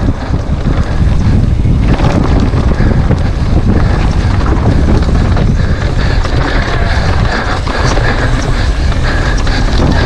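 Wind buffeting the microphone of a camera on a downhill mountain bike at speed, over a steady low rumble and rattle from the bike running over rough trail.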